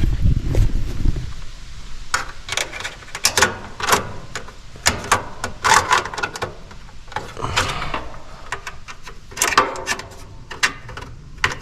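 Hands working small parts in a heat pump's control panel while a new defrost board is mounted: irregular clicks, taps and rattles of plastic and metal, with a low rumble in the first second or so.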